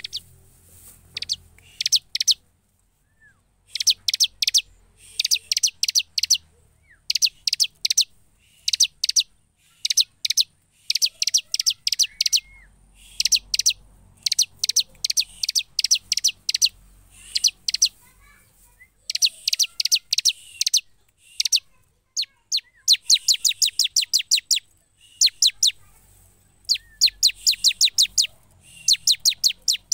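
Bar-winged prinia (ciblek) singing vigorously: quick runs of high repeated notes, one run every second or so.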